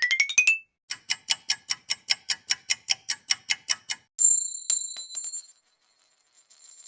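A string of stock sound effects. A rising pulsed tone ends, then a clock-like ticking runs at about six ticks a second for about three seconds, then a bell rings once with a bright high tone and fades.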